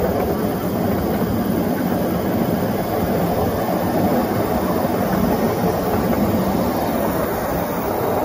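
10.25-inch gauge battery-electric miniature locomotive, driven by two 10 kW motors, running steadily along the track: an even rumble of wheels on rail, with no clear motor whine.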